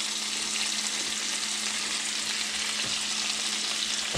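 Pieces of octopus head frying in hot toasted sesame oil and garlic in a skillet, a steady sizzle, with a faint low hum underneath.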